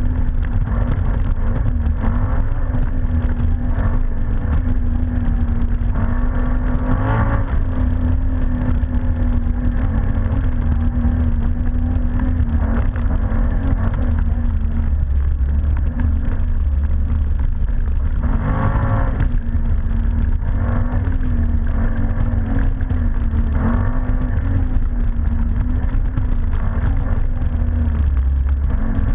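ATV engine running under way, its pitch wavering with the throttle and rising briefly about 7 seconds and 19 seconds in, over a heavy low rumble.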